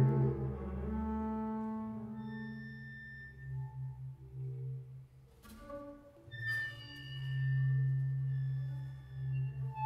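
Double bass played with the bow: sustained low notes with thin high overtones ringing above them. Two sharp clicks come about five and a half and six and a half seconds in, then a long low note swells and fades.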